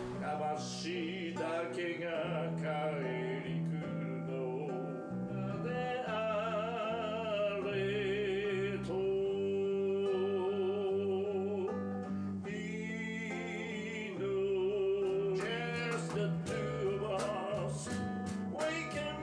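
A man singing a slow song into a microphone while strumming an acoustic guitar, his long held notes wavering with vibrato; the strumming grows sharper and more rhythmic near the end.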